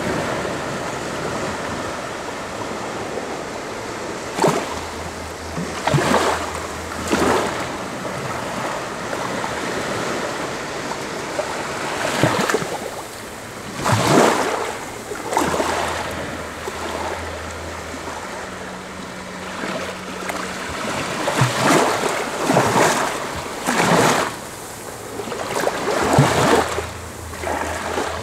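Small sea waves breaking and washing up over sand close by: a steady wash of water with a louder surge of surf every one to three seconds.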